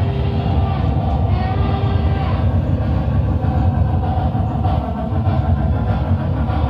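Onboard sound system of an HO scale Broadway Limited Paragon3 Norfolk & Western class A steam locomotive, playing steady, low-pitched steam train running sounds.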